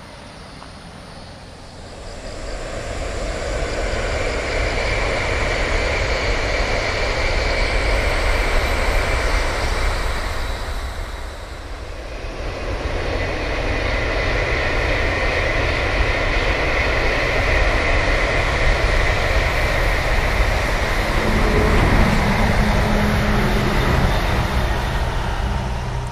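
Tokaido Shinkansen trains passing, twice: each a rushing sound that swells up and dies away over about ten seconds.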